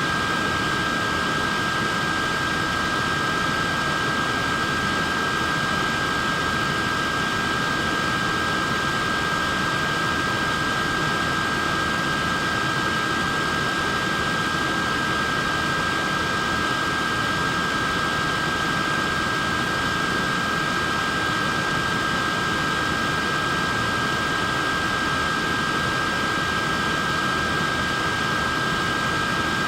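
Neck fan running steadily: an even rush of air with a steady high-pitched whine made of two close tones.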